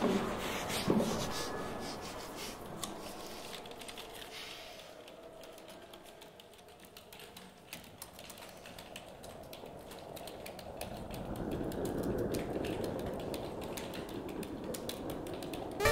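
Rapid, irregular clicking of keys as two people type. There is a thump about a second in, and a low drone swells up in the last few seconds.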